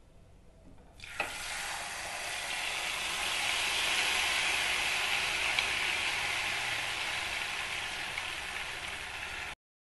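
Wet cashew-and-yogurt spice paste poured into hot oil in a nonstick kadhai, sizzling hard from the moment it hits the oil about a second in. The hiss holds steady, easing slightly, then cuts off suddenly near the end.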